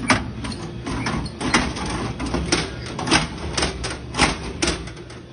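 Irregular clacks and knocks from a snack vending machine's hinged pickup flap and front panel as a hand reaches into the delivery bin, about ten sharp hits with no steady rhythm.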